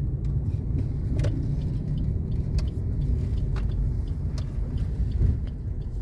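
Steady low rumble of a vehicle travelling along a road, with scattered small clicks and rattles.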